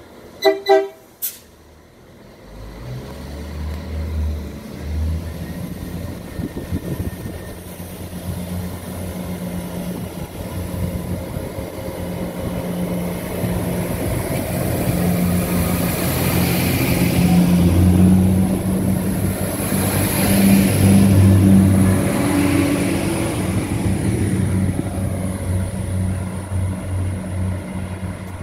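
Irish Rail 22000 Class diesel railcar giving two short horn blasts, then its underfloor diesel engines and wheels growing steadily louder as it runs alongside the platform, loudest about two-thirds of the way through before easing off.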